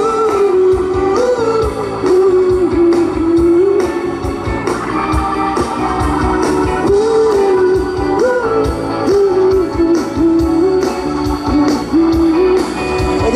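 Live band playing an instrumental break with no vocals: a lead melody over a steady drum beat.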